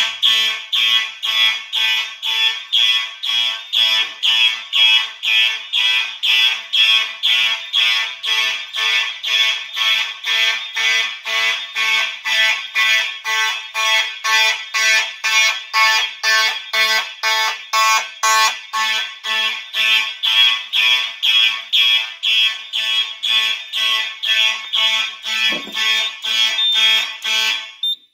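Several electronic fire alarm horns sounding in march time, about two loud blasts a second, on a manual evacuation from the fire alarm panel. They cut off suddenly at the end.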